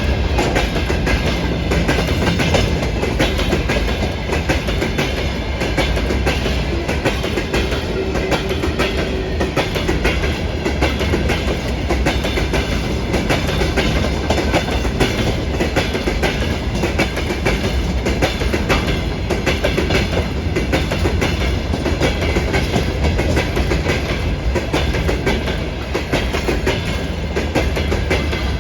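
Freight train wagons rolling past at speed, their wheels clacking steadily over the rail joints with a constant heavy rumble.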